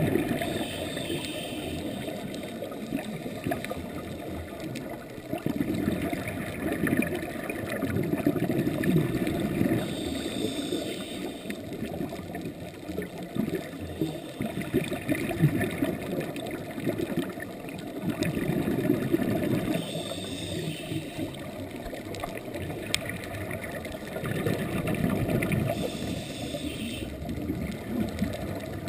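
A scuba diver's regulator breathing underwater. Each breath in is a short hiss, and each breath out is a bubbling rush of exhaled air, repeating in slow cycles several seconds apart.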